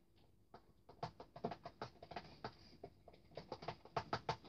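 Spoon stirring thick glue-based slime mixture in a plastic tub, making faint, irregular clicks and taps several times a second as it knocks and scrapes against the plastic.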